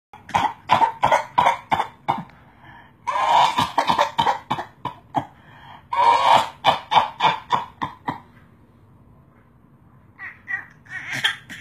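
A person's voice in rapid runs of short, breathy cough-like bursts, about five a second, in three runs of about two seconds each, then a few fainter bursts near the end.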